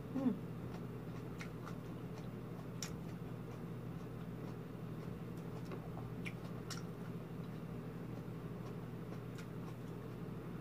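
Close-up hand-eating sounds: chewing, soft mouth clicks and fingers on the plate, a few faint scattered ticks over a steady low hum. There is a short, low vocal sound right at the start.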